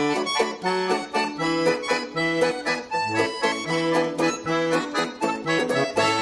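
Accordion music: a lively tune with alternating bass notes and chords in a steady rhythm, played as title-card music.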